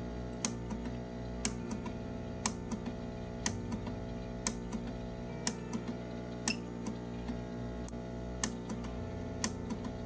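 SAR-1000 small animal ventilator clicking sharply once a second as it cycles breaths at 60 per minute, over steady background music.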